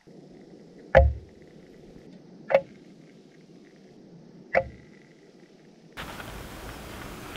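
Three sharp knocks, about a second and a half to two seconds apart, the first the loudest.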